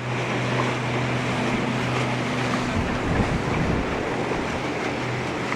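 Motorboat engine running at a steady pitch under a rush of wind and water as the boat moves along the lake.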